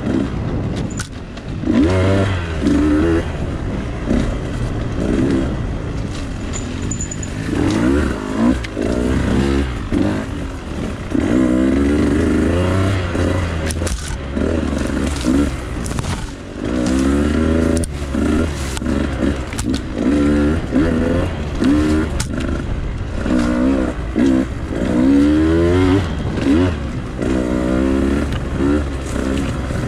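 Husqvarna two-stroke enduro dirt bike being ridden off-road, its engine revving up and falling back over and over, with scattered clattering knocks throughout.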